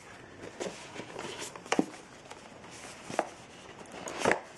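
Hands handling cardboard packaging inside a box: light rustling with a few sharp knocks and taps as a cardboard insert is lifted out.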